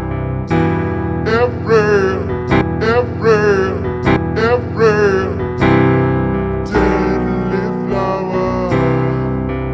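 Slowed-down, pitched-down ('chopped and screwed') song in an instrumental passage: sustained keyboard chords under a wavering melodic line that repeats about once a second, with new chords struck a little past halfway.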